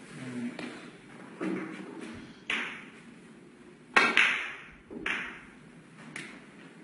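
Snooker balls clicking: a series of sharp cue-tip strikes and ball-on-ball contacts, each with a short ringing decay. The loudest pair comes about four seconds in.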